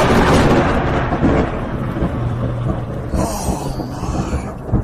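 Thunder from a close lightning strike: a loud rolling rumble after the crack, slowly fading.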